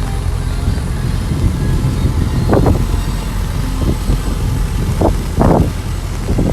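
Strong wind buffeting the microphone with a steady low rumble, surging louder in short gusts about two and a half seconds and five seconds in.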